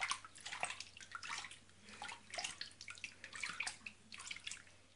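Bathwater in a baby bath splashing and trickling in many small, irregular splashes as a hand swishes water over an infant's body.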